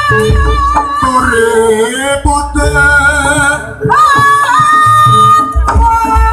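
Live East Javanese jaranan ensemble music: a high, wavering melody with vibrato and pitch slides over low drum strokes.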